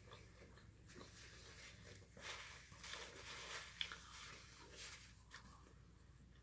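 Faint sounds of a person eating close to the microphone: chewing, with a sharp click about four seconds in.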